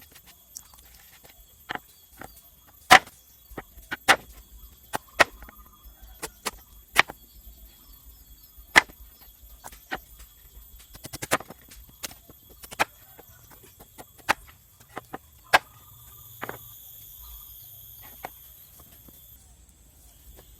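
Irregular sharp knocks and snaps, roughly one a second, with a cluster of quick clicks just past the middle. They sound over a steady high thin whine.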